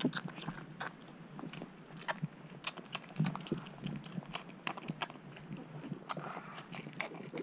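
Twelve-day-old shar pei puppies suckling at their mother's teats: irregular wet sucking and smacking clicks from several mouths at once.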